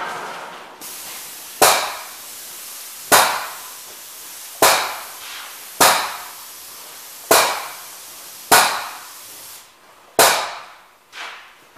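Paint spray gun hissing steadily as it sprays primer, stopping shortly before the end. Over it come sharp knocks about every one and a half seconds, each ringing away briefly, with one more just after the hiss stops.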